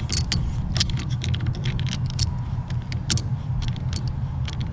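Locking pliers making irregular sharp metallic clicks as they squeeze a metal clamp onto a semi truck's bundled air and electrical lines, over the steady low rumble of an idling engine.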